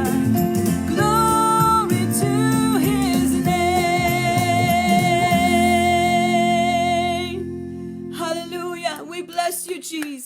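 Worship song sung by a voice with guitar accompaniment. A long held note fades out about seven seconds in, and softer, shorter vocal phrases follow.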